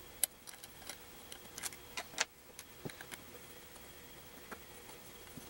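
Faint, scattered metal clicks and ticks of an Allen wrench working the housing screws on a milling-machine power feed, with a small cluster of clicks about two seconds in.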